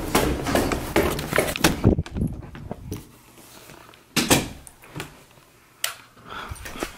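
Footsteps on a staircase for the first two seconds, then a few separate sharp knocks and clicks in a quiet small room.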